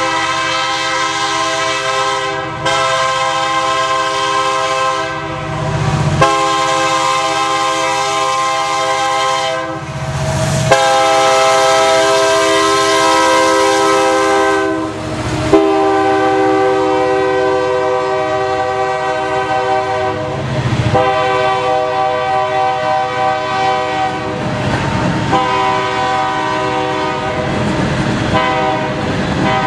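Multi-chime air horn of a Union Pacific diesel freight locomotive blowing a series of long blasts with short breaks as the train approaches and passes. Its pitch drops a little about halfway through as the locomotive goes by. Under it runs the rumble of the diesel engines and the train's wheels.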